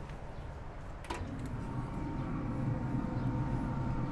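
A single click about a second in as a pellet grill's lid is opened, over a steady low hum.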